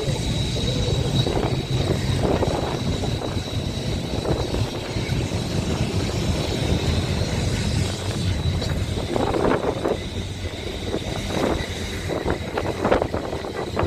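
Boat tram 600, an open-top Blackpool tram, running along the line and heard from on board: a steady low rumble of the car and its wheels on the rails with a noisy rush over it, and a few short louder rattles in the second half.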